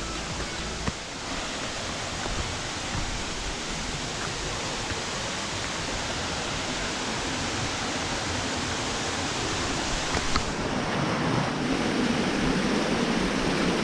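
Waterfall: a steady, continuous rush of falling water.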